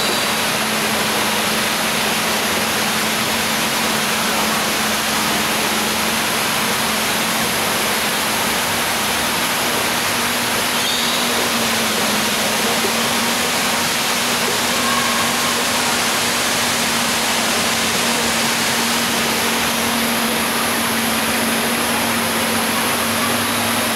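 Ride-boat ambience: an even, unbroken rushing noise like flowing water, over a constant low hum from the boat.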